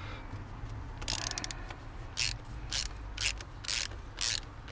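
Short rasping, ratchet-like strokes, roughly two a second, from hands and a small tool working at the plastic injector wiring loom and plug of a diesel engine.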